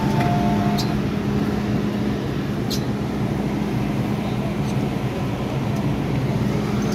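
Inside an MTR M-Train carriage: a two-note electronic chime, high then low, sounds in the first second, over the train's steady low hum with a held low tone.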